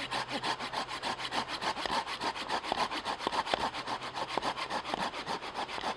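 A Silky Gomboy folding pull saw cutting into a cherry log in quick, even back-and-forth strokes, making a stop cut.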